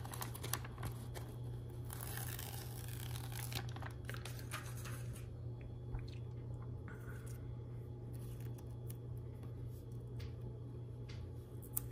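A sticker being peeled off its paper backing sheet with a soft tearing rustle a couple of seconds in, then small clicks and rustles of plastic LEGO Technic parts and the sheet being handled, over a steady low hum.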